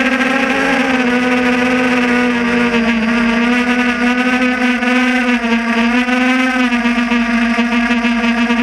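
Quadcopter drone's motors and propellers running, heard through the drone's own camera: a steady hum with a strong pitch that wavers a little as it manoeuvres.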